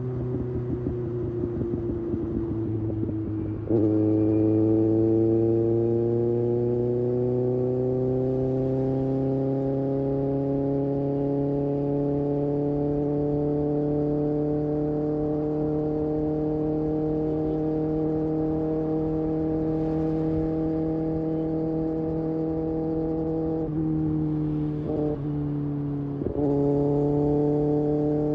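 Kawasaki Ninja ZX6R inline-four engine under way, its pitch jumping up abruptly about four seconds in, then climbing slowly and steadily for a long stretch, wavering and jumping up again near the end.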